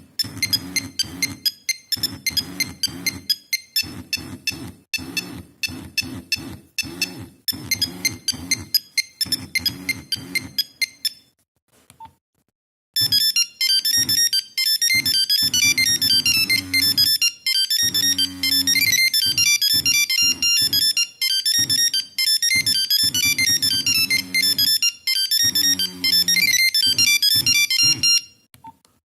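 Nokia 3410 mobile phone playing monophonic ringtones, each note a sharp beep. One ringtone stops about eleven seconds in. After a short pause a second, faster and busier ringtone plays until near the end.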